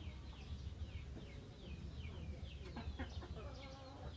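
Birds chirping: rapid short high calls, each falling in pitch, several a second, over a steady low rumble.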